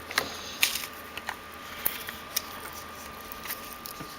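Handling noise as a compact camera is fitted into its case: light rustling with several sharp, scattered clicks and taps.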